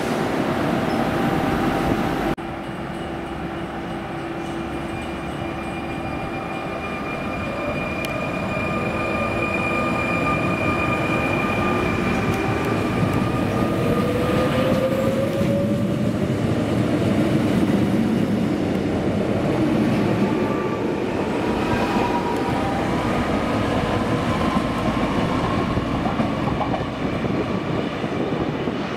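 Suburban electric multiple unit pulling away from a platform. A steady electrical hum while it stands is followed by a whine that rises in pitch as it accelerates. Wheel and running noise grows louder as the carriages roll past, then eases near the end.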